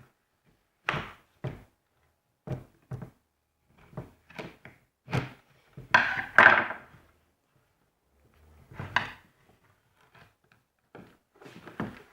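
Irregular knocks and clunks of a power drill's casing and tools being handled and pried at during disassembly, with a longer, louder clatter about six seconds in.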